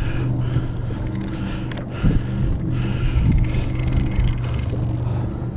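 Boat engine idling steadily, with a single knock about two seconds in and a fast, fine ticking in the second half.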